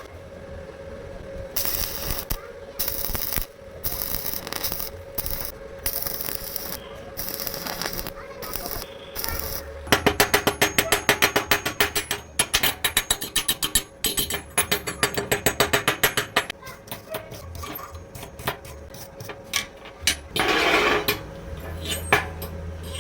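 Metalworking in a workshop: bursts of harsh noise that start and stop, then a run of rapid metallic strikes, about four a second, for several seconds, then sparser clicks.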